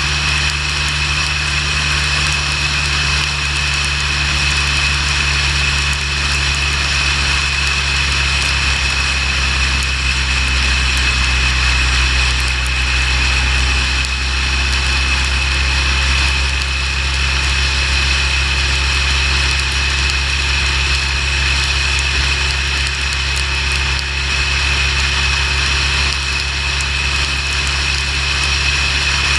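Motorcycle engine running steadily at cruising speed under a constant rush of wind and road noise, with a steady high whine.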